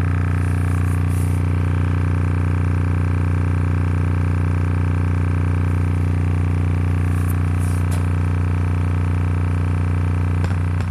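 Aiwa 6.5-inch midbass driver playing a steady low bass test tone in free air, with no enclosure. The cone is making large excursions, and the tone comes with a stack of buzzing overtones.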